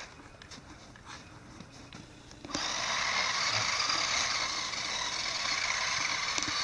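Remote-control toy snowmobile's small electric motor and track starting suddenly about two and a half seconds in and running at full throttle with a steady high whirr.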